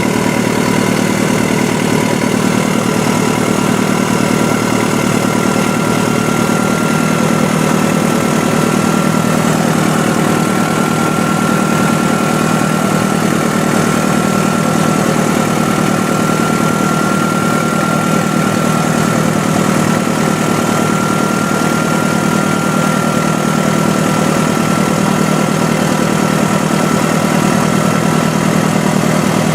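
Heavy diesel earthmoving machine engine running steadily at an even pace, with a thin high whine that comes in after a couple of seconds and drops out near the end.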